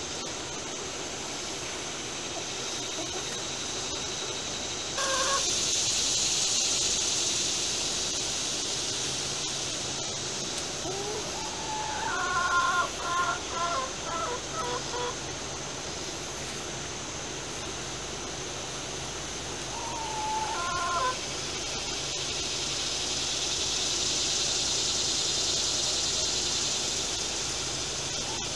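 Chickens clucking, with a quick run of clucks about a third of the way in and single calls before and after, over a steady high-pitched hiss.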